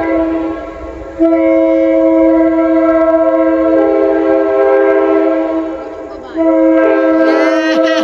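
Locomotive Nathan P5 five-chime air horn sounding a steady chord in long blasts: one ends just after the start, a long one runs about four and a half seconds, and another begins about six seconds in. Quick rising and falling sliding pitches sound over the last blast near the end.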